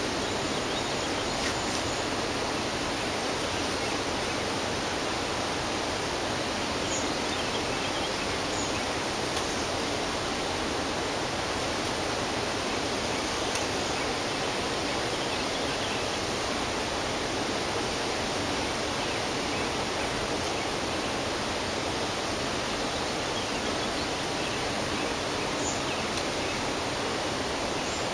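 Steady, even rush of flowing water, with a few faint, short high ticks now and then.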